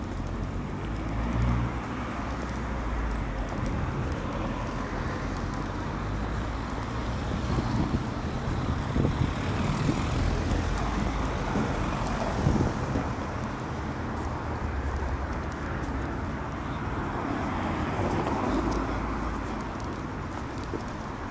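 Street traffic in a small town centre: cars passing at low speed, their engine and tyre noise swelling as one goes close by around the middle.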